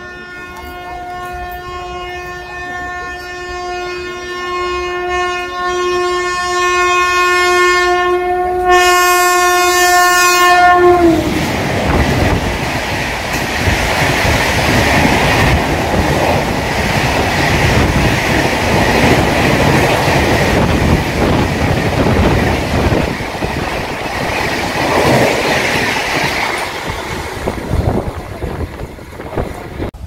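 Express passenger train's electric locomotive sounding one long, steady horn blast as it approaches, growing louder and ending with a slight drop in pitch as the locomotive passes. The loud rush and clatter of the coaches going by at speed follows, fading near the end.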